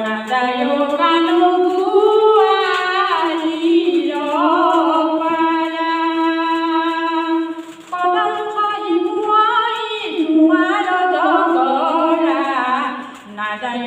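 A woman singing an Assamese folk song unaccompanied, in long held phrases with a wavering pitch, with short breaks about eight seconds in and again near the end.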